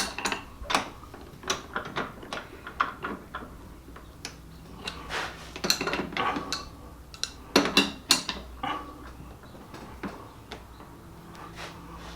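Irregular metallic clicks, clinks and taps of hand tools and gearbox parts being handled while setting the shift-barrel detent on a sequential transmission.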